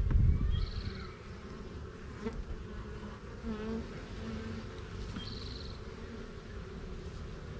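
Honeybees buzzing around an open hive box: a steady hum, with single bees flying close by so that the pitch wavers up and down. A loud low rumble in the first second, and two short high trills, one under a second in and one about five seconds in.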